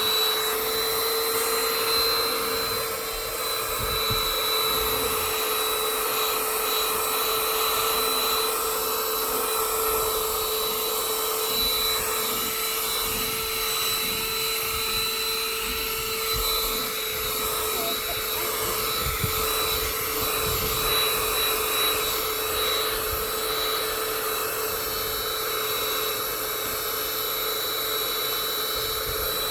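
Small car vacuum running steadily, its motor giving a constant high whine, with scattered low bumps as the nozzle works over the car's interior and picks up debris.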